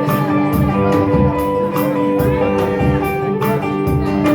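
Live band playing an instrumental passage with no vocals: guitar and sustained notes over a steady drum beat.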